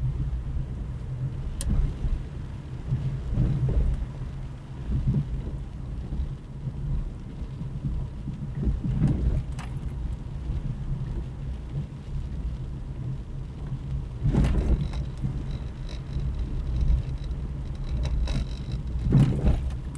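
Car driving on a wet, potholed street, heard through the dashcam inside the cabin: a steady low engine and tyre rumble, with louder surges of noise about every five seconds.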